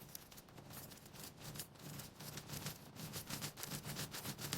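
Metal keys rattling with quick, irregular clicks, growing louder.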